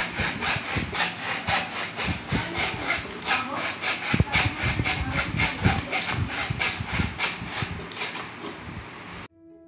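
A thin hand saw blade cutting through a wooden batten in steady back-and-forth strokes, about three a second, stopping abruptly near the end.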